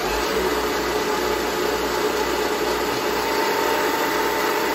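Vertical milling machine spindle, driven by its motor on a variable frequency drive in high-speed mode, running steadily at speed with a steady whine.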